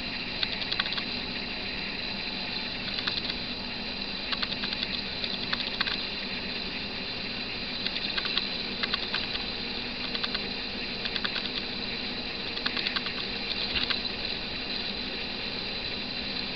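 Camera's own operating noise: a steady hum and hiss, with scattered clusters of short ticking clicks every second or so.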